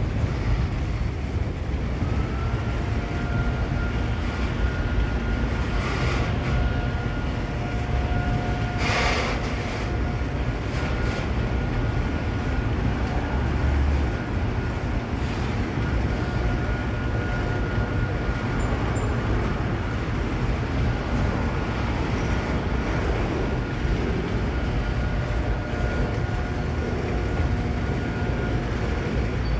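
Autorack freight cars rolling past: a steady low rumble of wheels on rail, with a thin steady high whine running through most of it and a sharp clank about 9 seconds in.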